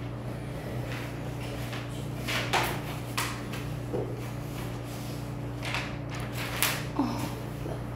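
About half a dozen short knocks and rustles, like objects being handled on a desk, over a steady low hum.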